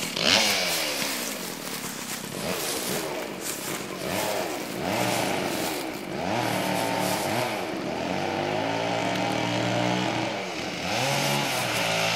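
Two-stroke chainsaw running as it cuts a dead tree, its engine pitch rising and falling over and over as it revs and bogs.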